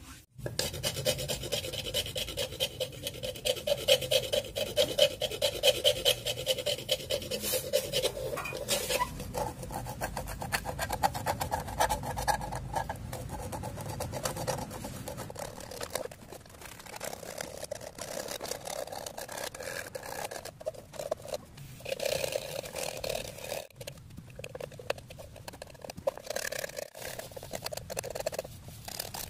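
Small knife blade scraping the fibrous husk off a coconut shell half in quick, repeated strokes, with a few short pauses.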